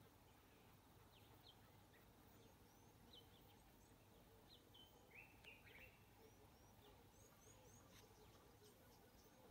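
Faint birdsong from several small birds: scattered short chirps and little whistled notes, with a slightly louder call about five seconds in, over a quiet steady hiss.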